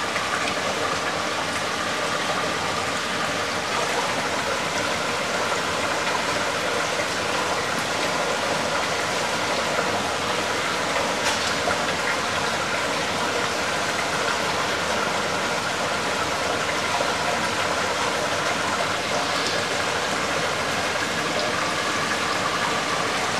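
Steady, even rush of running water that holds the same level throughout.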